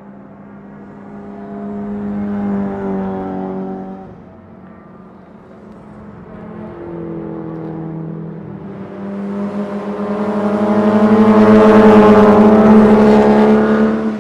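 Race car engines at speed: one engine note swells and fades about two to three seconds in, then a louder one builds to a peak near the end and cuts off abruptly.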